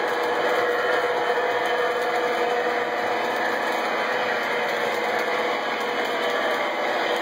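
Lionel O scale model freight trains running on the layout: a steady rolling rumble of wheels on track, with a steady hum.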